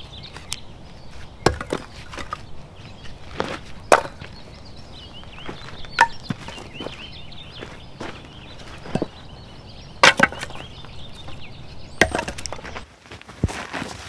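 Firewood being split: sharp blade-on-wood strikes every one to two seconds as cherry-wood rounds are chopped into pieces. Faint birdsong chirps in the background.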